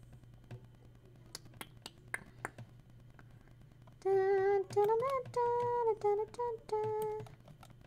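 A woman humming a short tune in a few held notes, some sliding up and down, starting about halfway through. It is preceded by a handful of sharp clicks from a computer mouse or keyboard.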